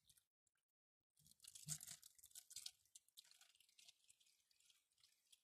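Liquid poured from a plastic bottle into a plastic tray over rusty steel files: a faint splashing trickle with many small ticks, starting about a second in.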